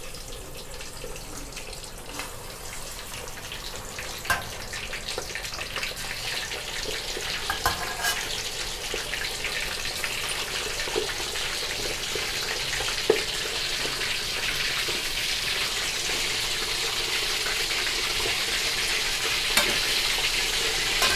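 Fish-sauce-marinated chicken wings sizzling as they deep-fry in hot oil in a metal wok. The hiss grows steadily louder as more pieces go into the oil, with a few sharp clicks from the metal spatula against the wok.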